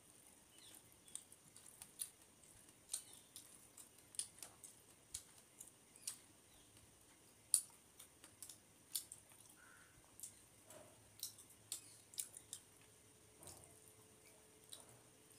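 Faint close-miked eating sounds: chewing and lip-smacking, heard as irregular short wet clicks, a few every second.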